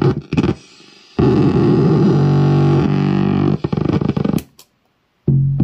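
Akai Rhythm Wolf analog drum machine played through a Time Box Glitch effects pedal. Two short drum hits are followed by a loud, buzzy, pitched glitch drone lasting about two and a half seconds, which stutters, breaks up and cuts off. A new low pitched tone starts near the end.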